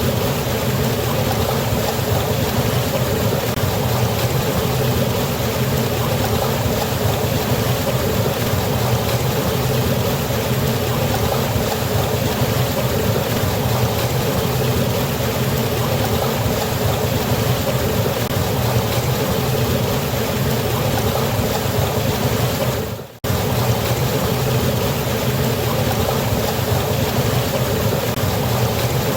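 Steady, continuous rush of water falling and flowing at a waterfall. About three-quarters of the way through it fades and cuts out for an instant, then resumes at the same level.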